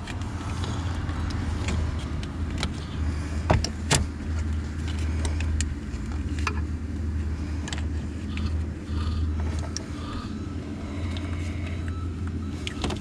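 Scattered clicks and light knocks of hoses and plastic wiring loom being handled and pushed into place in a pickup's engine bay, with two sharper knocks about three and a half and four seconds in, over a steady low rumble.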